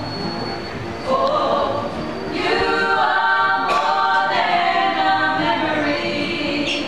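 Small group of women singing together, several voices holding long notes of a slow song.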